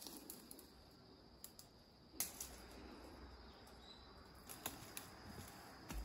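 Faint crackling and rustling of dry fallen leaves and twigs on a forest floor as someone moves through them, with a sharper snap about two seconds in and a few more crackles near the end.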